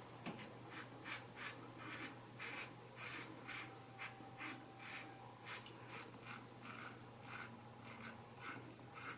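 Single-blade razor scraping through lathered whiskers in short, quick strokes, about two to three a second, each a faint dry rasp.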